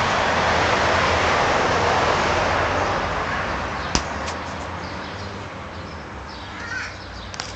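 Rushing noise of a passing vehicle fading away, with a single sharp click about four seconds in.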